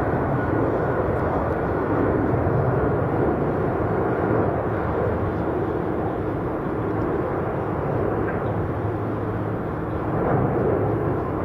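Jet airliner engines, a steady rumble that holds its level throughout.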